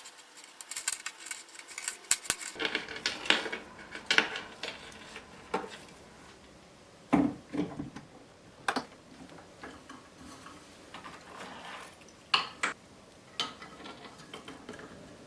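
Links of a sterling silver chain bracelet clinking and rattling against each other and against metal in irregular clusters of sharp clicks as the bracelet is handled and worked.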